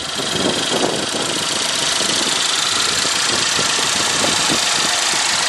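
Chevy Equinox's 2.4-litre four-cylinder engine running at idle, heard close up as a steady, hissing noise that swells during the first second.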